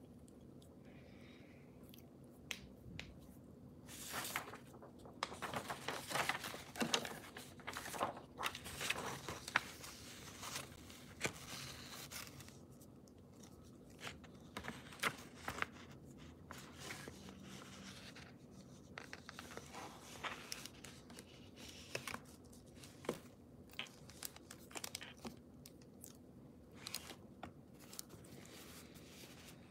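Sheets of paper rustling and crinkling as they are handled and shuffled on a table, in irregular bursts that are busiest in the first half.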